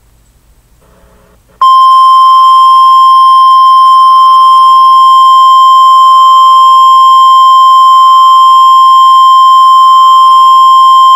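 The NOAA Weather Radio 1050 Hz warning alarm tone, a single steady, very loud pure tone. It comes in abruptly about a second and a half in and holds unchanged, signalling that a warning message is about to be read.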